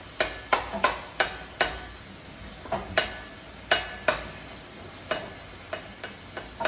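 A spatula knocking and scraping against a skillet as ground meat is stirred while it browns. Irregular sharp clacks, sometimes two or three a second, sound over a faint sizzle.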